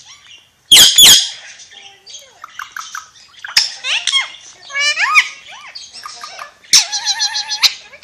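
Ringneck parakeet giving two very loud screeches about a second in, then a run of chattering, whistled calls that glide up and down in pitch, with a buzzy warbling call near the end.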